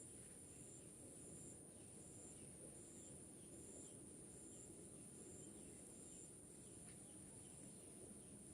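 Near silence with faint insects calling: a steady high-pitched trill, and a second high chirp repeating evenly a little more than once a second.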